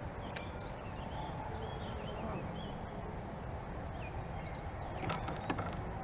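Birds calling with short chirps and whistles over a steady low rumble, with a few sharp clicks near the end.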